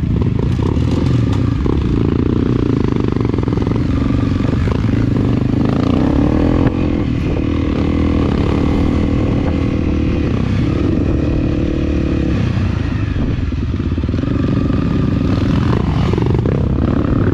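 Enduro dirt bike engine running at low revs through slow traffic, its pitch shifting up and down a little as the throttle changes.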